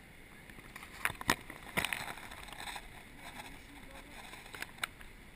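Leafy branches brushing and knocking against the camera in sharp clicks and rustles, about half a dozen in all, over a steady rushing background noise.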